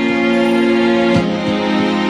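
Instrumental background music: slow, sustained notes that change about a second in.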